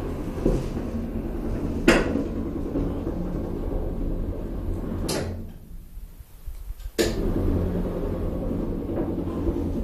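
Observatory dome rotating: a steady low rumble with a sharp clunk about two seconds in. About halfway through it stops with another clunk, goes nearly quiet for about two seconds, then starts again with a clunk.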